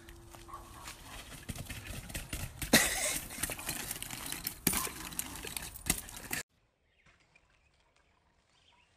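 Knocks and clatter of a small 12-inch bike rolling and bumping over concrete, with a rough, noisy rumble and two sharp knocks, the louder one near the start of the loud stretch. The sound cuts out abruptly about six and a half seconds in, leaving near silence.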